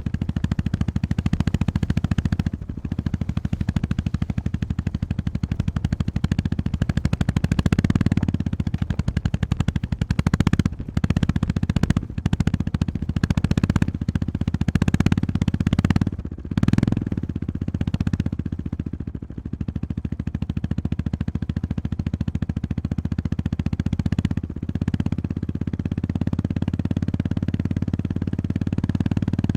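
Honda GB350S's air-cooled 348 cc single-cylinder engine running under way, a rapid even thumping from the exhaust. The throttle eases off and picks up again several times.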